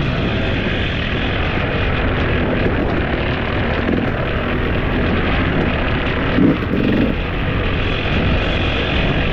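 A vehicle running on the move, its engine noise mixed with a heavy, steady rush of wind on the microphone.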